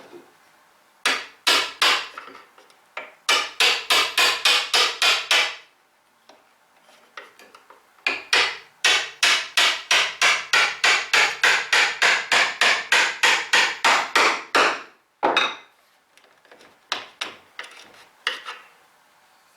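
Hammer striking a half-inch mortise chisel, chopping the end of a mortise in wood: quick runs of sharp blows at about four a second, the longest lasting some seven seconds, with lighter taps near the end as the chisel is brought to the marked line.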